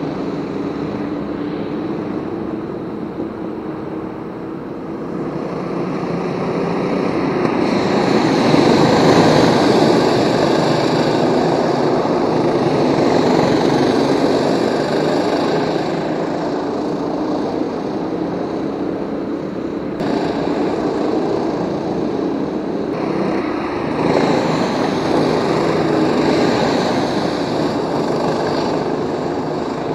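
Go-kart engines running as karts lap the circuit, swelling as they come past, loudest around a third of the way in and again near the end, with a sudden break about two-thirds through.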